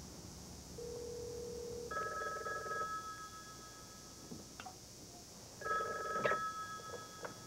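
Telephone bell ringing twice. Sharp knocks come during the second ring, which then stops abruptly.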